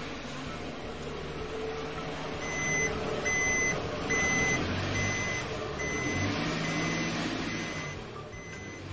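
Pickup truck reversing through deep snow: its engine running and tyres pushing through the snow, with a reversing beep repeating a little under once a second, about nine times, starting a few seconds in.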